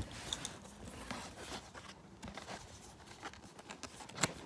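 Faint rustling and light scattered taps of a parcel's packaging being handled as it is opened, with one sharper tick near the end.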